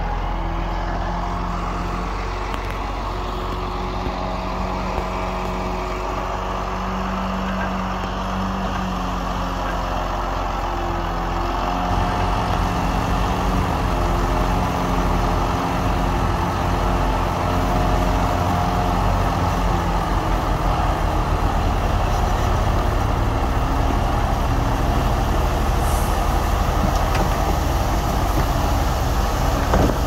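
Diesel engine of heavy earthmoving machinery running steadily. About twelve seconds in it grows louder, with a heavier low rumble.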